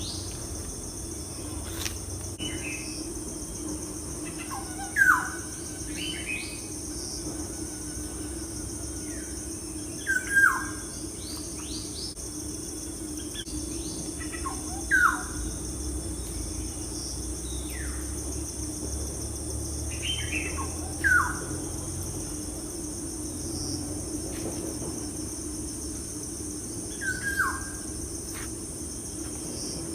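A bird calls over and over, each call a short, sharp downward sweep, five calls about five to six seconds apart. Under it runs a steady high-pitched drone of insects and a low steady hum.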